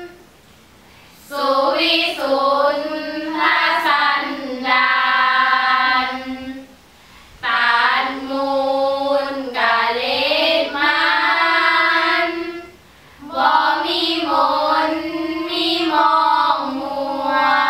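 Five girls chanting sarabhanya, the melodic Thai Buddhist verse chant, together in unison. Three long sung phrases, each drawn out with wavering pitch, with short pauses for breath between them.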